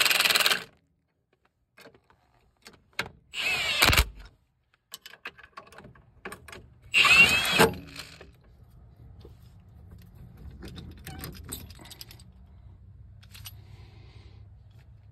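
An impact wrench turns the nut on a homemade threaded-rod hub puller in two short bursts, about 3 and 7 seconds in, drawing a wheel hub out of its steering knuckle. Light metallic clinks and rattles come between the bursts. After that a faint low steady hum runs with a few scattered clicks.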